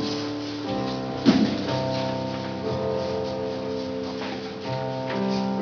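Slow instrumental worship music: held chords that change every second or two, with a short knock about a second in.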